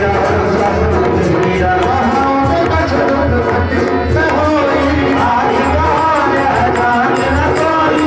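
Devotional bhajan played on harmonium and dholak, with a man singing and hand percussion ticking in time over a steady drum beat.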